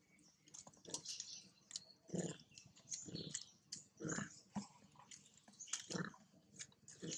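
Long-tailed macaques giving a handful of short, low grunts, with small clicks and rustles between them.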